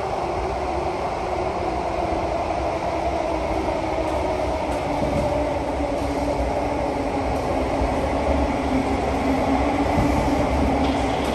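SMRT CT251 metro train running, heard from inside the carriage: a steady rumble and rolling noise with a constant humming tone from the drive, growing a little louder in the second half.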